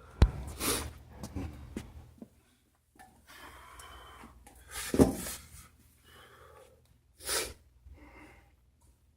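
A person breathing hard in short, forceful exhalations while doing crunches, with a sharp knock near the start and a louder blow about five seconds in.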